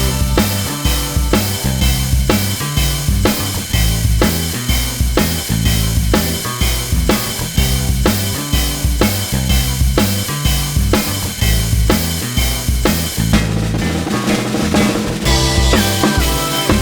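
Background music with a steady drum-kit beat and a bass line; the beat drops out briefly near the end before coming back.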